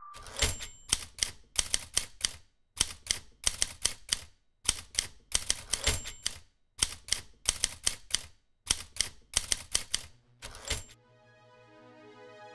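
Typewriter keystrokes, sharp clacking strikes in quick bursts of three to six with short pauses between. Near the end the typing stops and soft keyboard music fades in.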